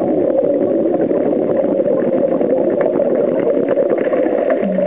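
Underwater ambience picked up by a dive camera: a steady, even noise with a dense crackle of tiny clicks running through it.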